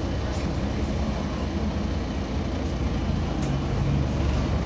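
Mercedes-Benz O405GN articulated city bus's diesel engine running steadily, with a low hum and road noise.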